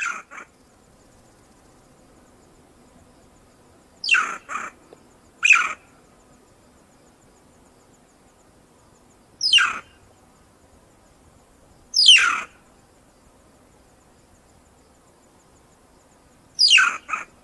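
Banded mongoose calls: high, sharply falling squeals, some in quick pairs, repeated every few seconds.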